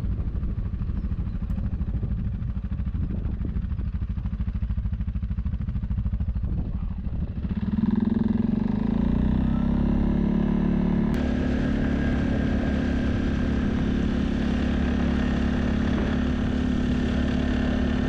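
Off-road vehicle engine running at low speed, then about seven seconds in it picks up and settles into a steady, higher pitch as the vehicle drives on.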